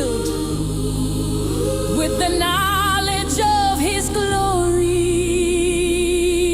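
African gospel praise music: voices sing long held notes with vibrato over steady low bass chords. One long note is held through the second half.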